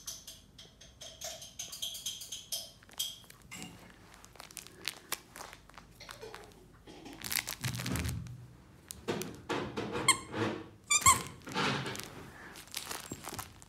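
A dog mouthing and squeezing a plush flamingo squeaky toy: the squeaker gives several short high squeaks, loudest in the second half, among dull thumps and rustling as the toy is bitten and pushed about.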